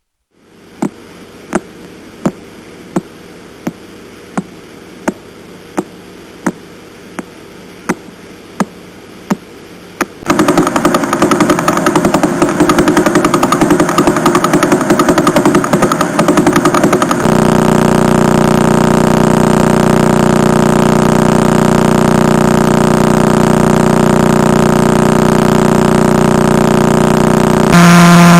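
Pulsar radio signals converted to sound. First come regular sharp clicks, about one and a half a second. About ten seconds in, a much faster buzzing pulse train takes over. From around seventeen seconds there is a steady droning hum, which shifts to a higher, louder tone near the end.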